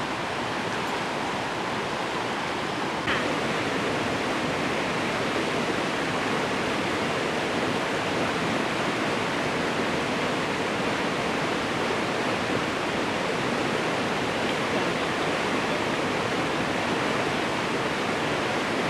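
Rushing river water: a steady, even roar of fast-flowing water that runs without a break, with one faint tick about three seconds in.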